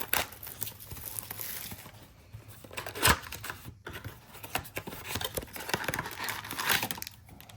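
Trading card packs and blaster box being torn open and handled: foil wrappers crinkling and tearing, with cardboard rustling and a sharp snap about three seconds in.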